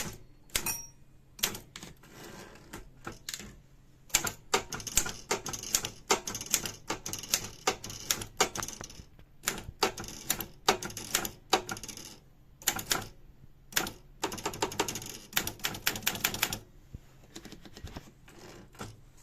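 Remington 2000 typewriter being typed on: runs of quick keystrokes broken by short pauses, stopping a few seconds before the end.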